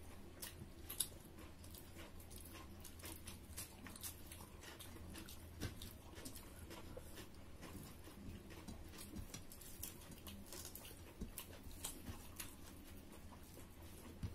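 Several people eating by hand: soft, irregular chewing and lip-smacking clicks, with fingers working rice on plates, over a faint steady low hum.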